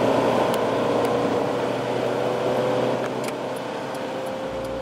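Road noise of a car driving at highway speed: a steady tyre and engine hum with a faint tone that rises slowly in pitch, gradually getting quieter.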